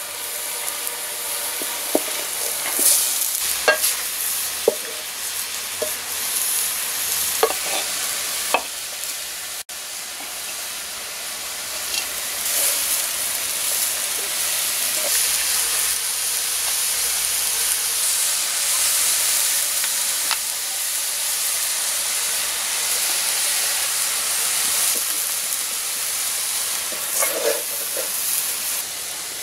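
Cabbage and carrot stir-frying in a metal pot: a steady sizzle, with the spatula scraping and knocking against the pot as it stirs. The scrapes come thickest in the first several seconds and again near the end.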